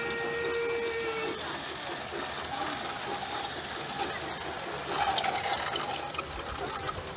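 Garden-scale model steam locomotive sounding its whistle, one steady note that stops about a second in. The train then runs on the track with an even noisy clatter of small clicks.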